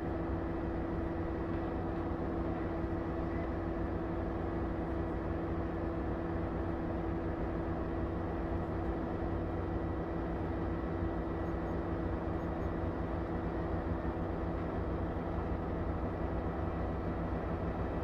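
An engine running steadily: a low rumble with a constant hum over it, unchanging throughout.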